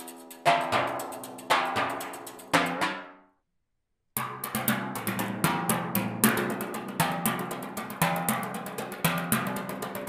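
Timpani struck with brushes: single ringing, pitched strokes about once a second, cut off abruptly about three seconds in. After about a second of silence, a new passage starts, played with thin rods: a fast run of light strokes with an accent about once a second.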